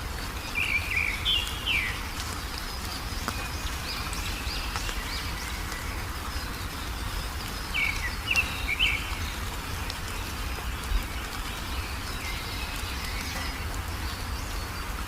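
Wild songbirds chirping in short, quick phrases, one burst near the start and another about halfway through, with scattered fainter calls over a steady low background rumble.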